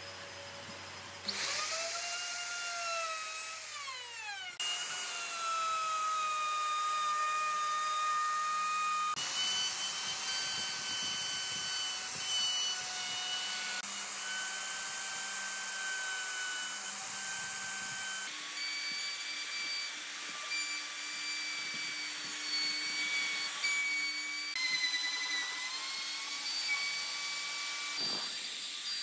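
Electric plunge router running at high speed and cutting into a pine board: a high motor whine over the rasp of the bit in the wood. The pitch jumps abruptly several times, and a few seconds in the whine falls steeply as the motor spins down.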